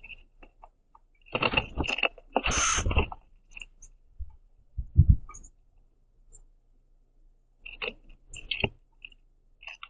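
Northern cardinals at a wooden platform feeder giving short, high chip notes over fluttering and scuffling on the wood. The busiest stretch is about a second and a half to three seconds in, with a low thump near the middle and more chips and scuffling near the end.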